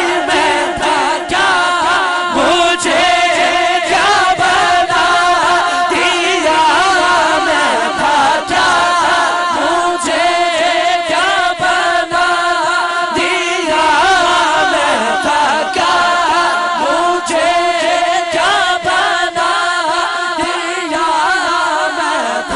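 Male naat reciter singing long, ornamented held notes into a microphone, unaccompanied by instruments, over a chorus of men's voices holding a steady drone.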